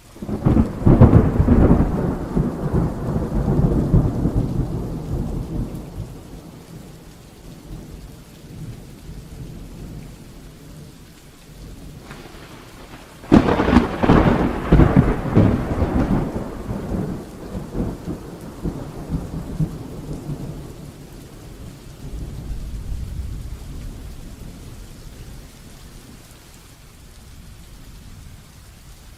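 Heavy rain falling steadily, with two long rolls of thunder: one breaking right at the start and rumbling away over about six seconds, another breaking about thirteen seconds in, then a softer rumble a few seconds later.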